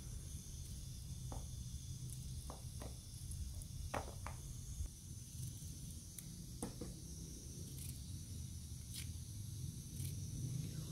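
Serrated knife cutting a small cucumber held in the hand: scattered crisp cuts at an uneven pace, with small pieces dropping into a plastic bowl, over a steady hiss.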